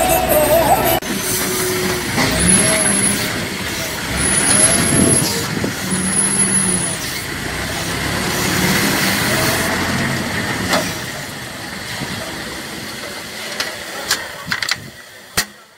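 Diesel engine of an ACE Hydra pick-and-carry crane running as the crane drives, heard from inside its cab. Three short high-pitched tones sound in the first half, and a few clicks come near the end.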